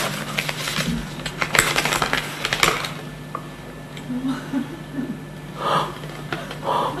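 Paper envelope rustling and crackling as it is handled and opened by hand, with a run of sharp crinkles in the first few seconds and quieter handling after.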